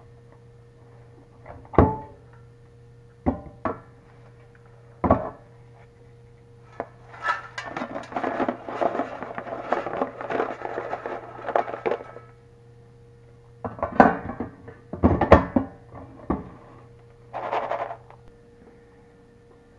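Farberware air fryer basket knocked and handled on the counter, then crinkle-cut fries shaken out of it onto a paper plate in a clattering rattle lasting about four seconds, followed by a few more knocks of the basket being set down. A steady low hum runs underneath.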